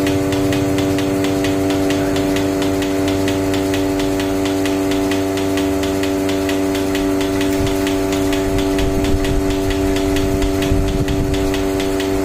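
Portable milking machine running: a steady hum from its motor-driven vacuum pump, with a rapid, even ticking of about five a second, while the teat cups are on the cow's udder.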